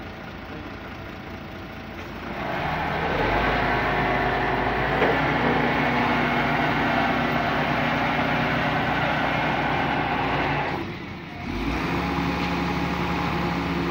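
Boom truck's engine speeding up to drive its UNIC crane's hydraulics as the boom is raised by the levers, a steady mechanical drone with steady tones. It rises about two seconds in, drops briefly about eleven seconds in, then picks up again.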